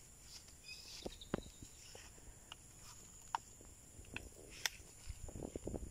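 Quiet rural outdoor ambience: a faint, steady high-pitched insect drone with scattered small clicks and rustles that pick up near the end.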